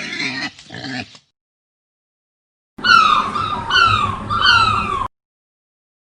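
Three whining animal cries, each under a second and falling in pitch, dog-like, over a low rumble, following a separate short noisy sound at the start.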